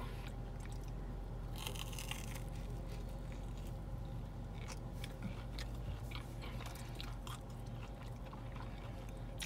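A person chewing a mouthful of Korean corn dog with a crushed Hot Cheetos coating, with scattered crunches and a crunchier stretch about two seconds in, over a steady low hum.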